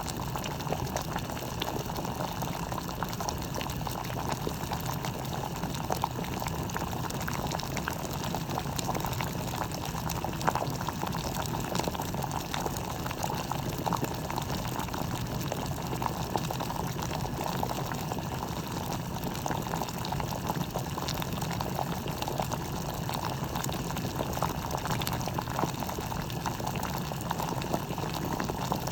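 Water boiling in a Bodum gooseneck stainless steel electric kettle: a steady bubbling with frequent small pops and crackles.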